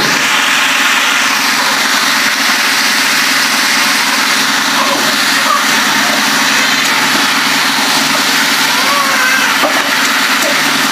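Vegetables cooking in a steel kadai on a gas stove and being turned with a metal spatula: a steady loud hiss over a constant low hum.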